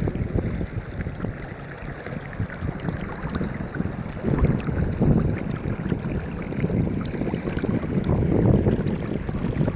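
Fast-flowing river water rushing over rocks, with wind buffeting the microphone in uneven gusts that grow louder in the second half.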